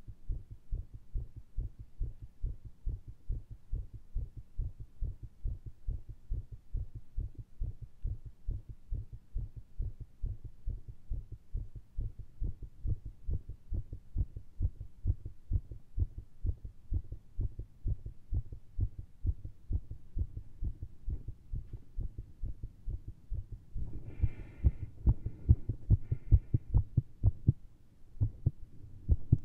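Fast human heartbeat picked up through a stethoscope, a quick run of low thuds, racing after a heavy dose of caffeine and straining pushes. The rhythm is labelled very irregular. Near the end the beats grow louder and a brief higher-pitched noise comes over them.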